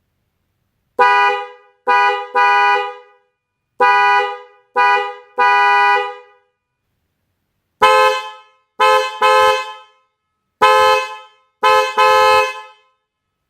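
DENSO Power Tone and HELLA Chrome Twin Tone electric car horns honked in turn, each in two bursts of one honk followed by two quick honks. The second set is a little higher in pitch than the first.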